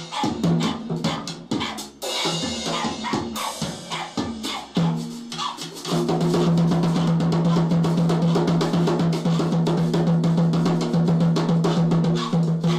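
Drum kit being played in a fast, irregular pattern of bass drum, snare and rim hits. From about six seconds in, a steady low tone sounds under the drumming.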